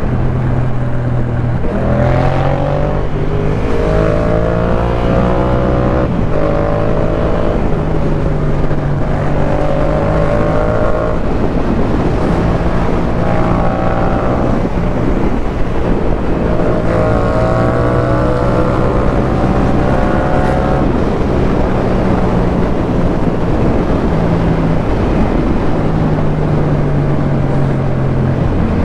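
Yamaha MT-07's parallel-twin engine breathing through a Jeskap K4 full exhaust system, running under way. Its pitch climbs and drops back several times as the throttle is worked through the revs.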